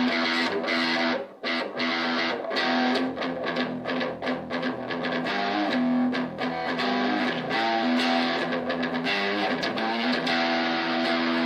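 Donner DST1 Strat-style electric guitar played through its small 3-watt Donner practice amp: strummed chords and picked riffs with a short break about a second in, cut off abruptly at the end.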